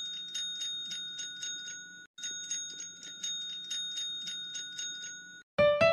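A regular clock-like ticking, about three ticks a second, under a steady high ringing tone. It breaks off briefly about two seconds in, then stops just before the end, where piano music begins.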